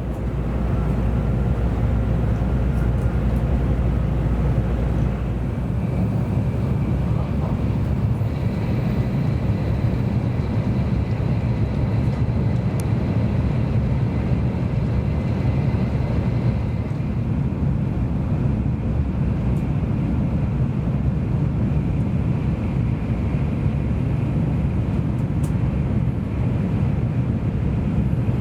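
Passenger train running along the line, heard from inside the carriage: a steady rumble of wheels and running gear with faint steady higher tones through the middle.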